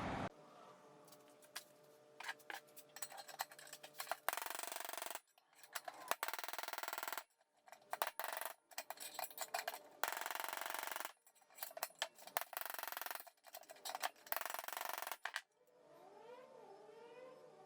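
Sharp metal clicks and clinks of bike parts and hand tools being handled, with several one-to-two-second stretches of hiss that start and stop abruptly. Near the end, a few short pitched calls rise and fall like a cat meowing.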